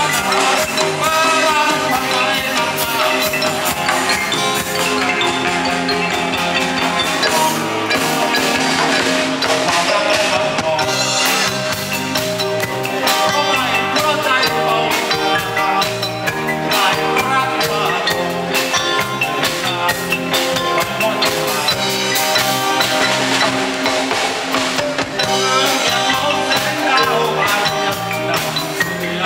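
A live band playing amplified music through stage speakers, with drum kit, electric guitars and keyboard, to a steady beat.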